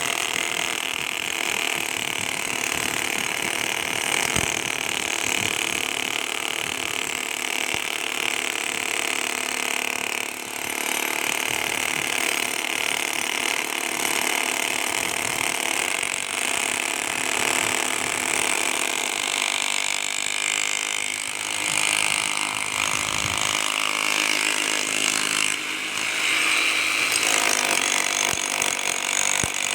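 A power tool running steadily and continuously while cutting into a reinforced-concrete road surface, a harsh, grinding mechanical noise with a brief dip about ten seconds in.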